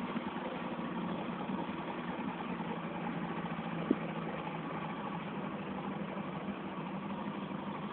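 An engine running steadily at one even speed, with a single sharp click about four seconds in.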